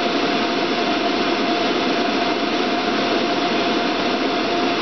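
Pool pump motor running steadily: a constant mechanical noise with one steady tone held through it.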